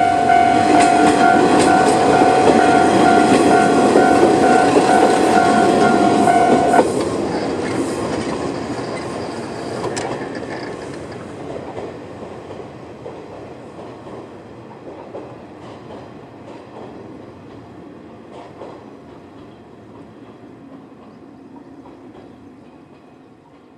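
Level crossing warning bell ringing in a steady repeating tone over the rumble and wheel clatter of a passing KiHa 0 series diesel railcar. The bell cuts off suddenly about seven seconds in. The train's noise then fades away steadily as it leaves.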